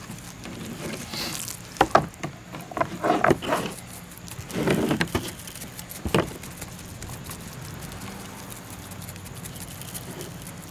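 Seasoning shaker bottle shaken over a rack of raw baby back ribs, the dry rub rattling in the bottle and pattering onto the meat in several short bursts over the first six seconds, then quieter.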